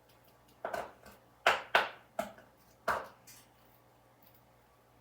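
A handful of sharp knocks and clatters of food and utensils on a kitchen pan, about six in two seconds, the loudest two close together in the middle.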